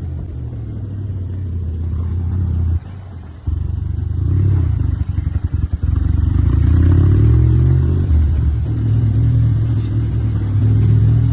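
Joyner 650 side-by-side's engine running while driving on the street. Its sound drops away abruptly for about half a second near three seconds in, stutters briefly, then rises in pitch as it accelerates.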